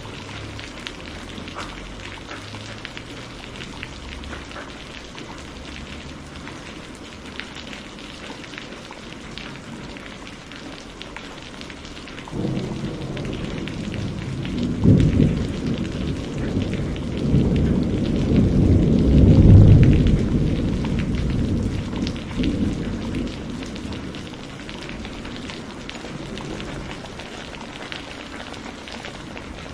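Steady rain hissing. About 12 seconds in a long roll of thunder rises in, swells twice and rumbles away over about ten seconds.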